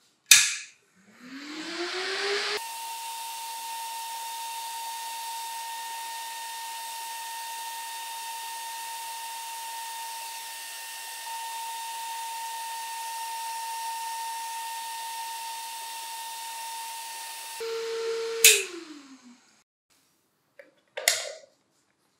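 A small axial fan in a metal housing is switched on with a toggle-switch click, spins up with a rising whine, and then runs with a steady hum and whoosh of air. Near the end it is switched off and its whine falls away as it spins down, followed by one more switch click.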